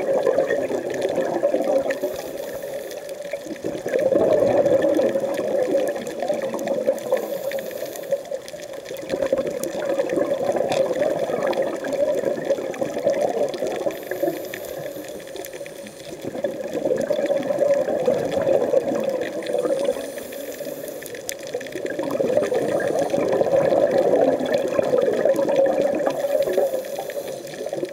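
Scuba diver breathing through a regulator underwater, in a repeating cycle: a short hiss on each inhale, then a long bubbling rush of exhaled air bubbles, roughly every six seconds.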